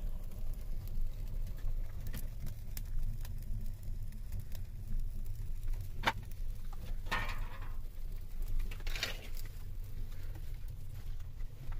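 Wood fire crackling in a small earthen hearth, with scattered sharp pops and clicks over a low steady rumble. A few louder swishes come around the middle and near the end.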